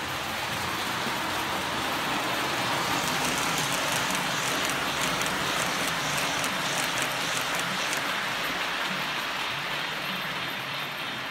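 Model passenger train running past on its track: a steady rolling rumble of wheels on rails that swells as it passes close and then eases off, with rapid fine clicking over the rail joints at its loudest.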